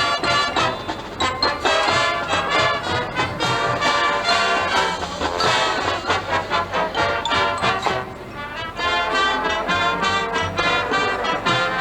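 Marching band playing, brass to the fore over percussion, with a brief softer passage about eight seconds in.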